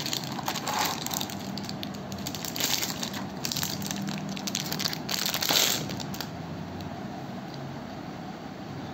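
Clear plastic wrap crinkling and rustling as a metal hair trimmer is pulled out of it in a plastic tray. The crinkling dies down about six seconds in.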